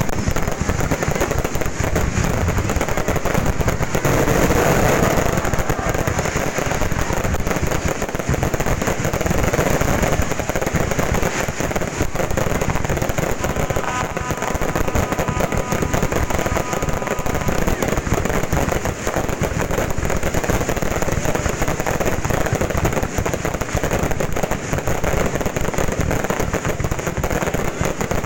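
Fireworks going off in a dense, continuous barrage of rapid crackles and bangs that hardly lets up.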